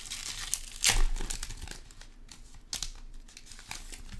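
Foil trading-card pack wrapper crinkling and tearing as it is ripped open by hand, with a loud crackle about a second in.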